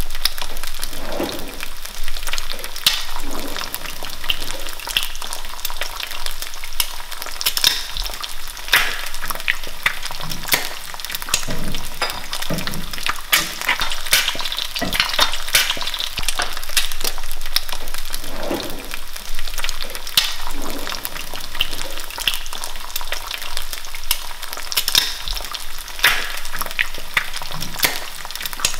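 An egg frying in hot olive oil in a cast iron skillet: a steady sizzle and crackle with many small sharp pops.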